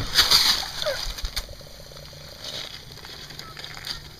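Water running and splashing from a tap left open to bleed air out of the water lines, loudest in the first second and then quieter.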